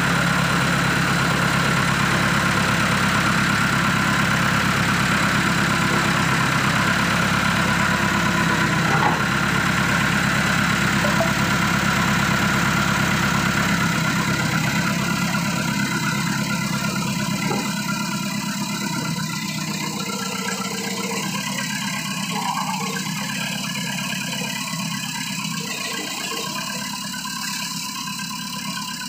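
Backhoe engine running steadily; a little past halfway its low rumble thins and the sound grows gradually quieter.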